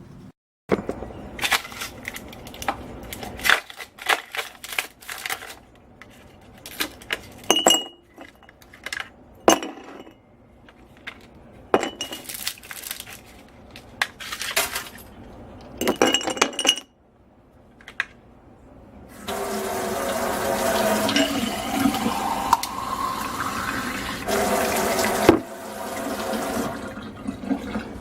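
A series of sharp clinks and clatters of hard objects, some ringing briefly, then water running steadily for about six seconds before stopping.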